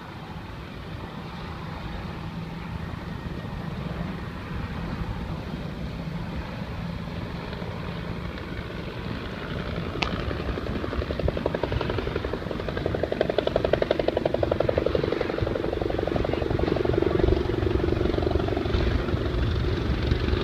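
Helicopter rotor chop, a fast, even beating that grows louder from about halfway through as the helicopter comes closer, over a steady low rumble.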